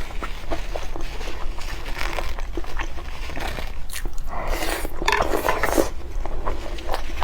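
Close-up eating sounds: a person biting and chewing food, with many short crunchy clicks, and a denser run of crackling bites a little past the middle. A steady low hum runs underneath.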